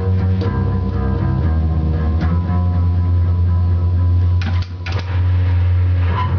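Loud, doomy amplified guitar playing long, low sustained notes that ring on for seconds at a time. About four and a half seconds in, the notes break off briefly with a couple of sharp clicks, then the low drone resumes.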